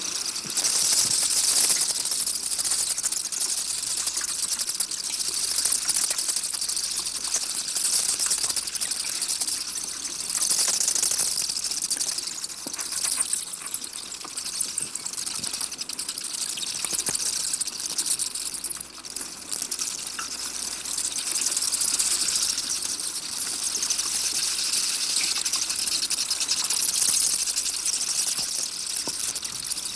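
Bats chittering and squeaking in a dense, steady, high-pitched chatter full of tiny clicks, swelling and easing every few seconds.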